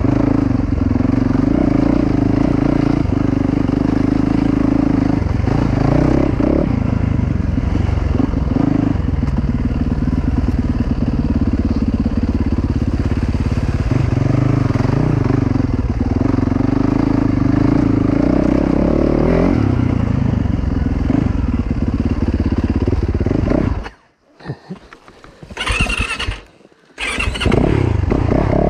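Yamaha YZ450FX dirt bike's 450 cc single-cylinder four-stroke engine, heard while riding a trail, its note rising and falling with the throttle. Near the end the sound almost cuts out for a few seconds, with a brief hiss, before the engine comes back.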